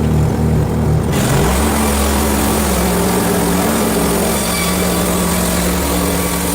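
Small engine running steadily at high load, its note shifting to a different steady pitch about a second in.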